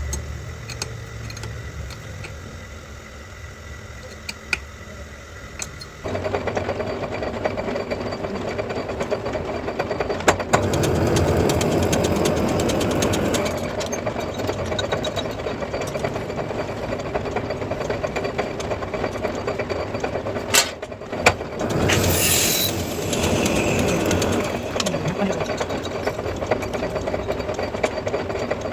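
Metal lathe running, with a steady machine hum and fine rattle. It gets clearly louder about six seconds in, and later a few sharp clicks and a short hiss stand out.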